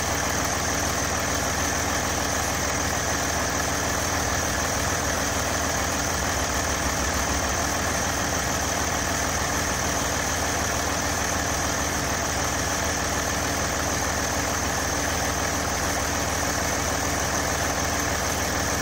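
Mercedes-Benz OM642 3.0-litre V6 common-rail turbo diesel idling steadily.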